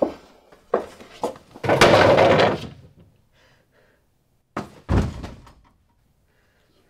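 A door banging shut, with knocks and thumps through the first few seconds. Then two heavy thuds come close together about two-thirds of the way in.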